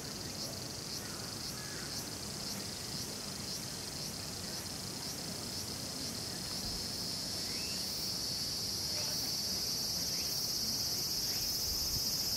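Cicadas singing: a high pulsing trill, about two pulses a second, gives way about halfway through to a steady shrill buzz that grows louder. Faint bird calls come through now and then.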